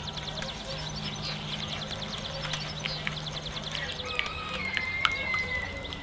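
Birds chirping and calling, many short high chirps with a longer held call in the second half, over a low steady hum and a few light clicks.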